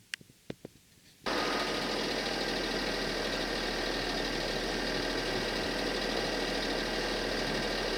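A few faint clicks, then a loud, steady engine hum with a constant low drone that starts abruptly about a second in.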